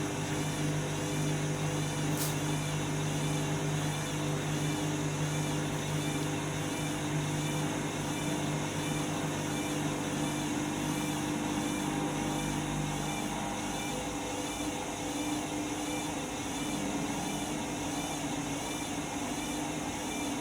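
Candy washing machine running through its drain and distribution stage before the final spin: a steady motor sound with a wavering high whine. A low steady hum stops about two-thirds of the way through.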